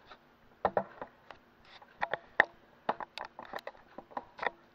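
An uneven series of about a dozen short clicks and light knocks from hands handling things around an air fryer basket.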